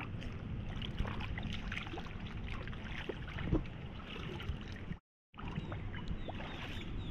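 Pool water splashing and sloshing as a wet fabric mermaid tail is moved and lifted in it, with many small irregular splashes. The sound drops out completely for a moment about five seconds in.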